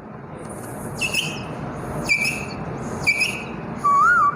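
A boy imitating a quail's call with his mouth: three short, high whistled calls about a second apart, each dropping slightly in pitch, then a louder wavering whistle near the end.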